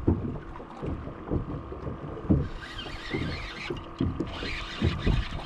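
Small waves slapping against the hull of a small boat in irregular low knocks, under a faint steady hum. A rustling hiss runs from about two and a half to five seconds in.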